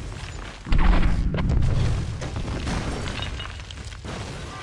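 Building explosion from a film soundtrack: a deep boom hits a little under a second in, then a long rumble with crackling and shattering debris that slowly dies away.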